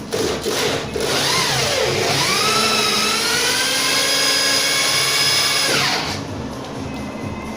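Electric drill driving a threaded steel rod into a hole between wooden floorboards. The motor whine dips under load about a second in, then rises and runs steadily, and winds down about six seconds in. The rod is being driven down to bear on the concrete subfloor to stop the boards creaking.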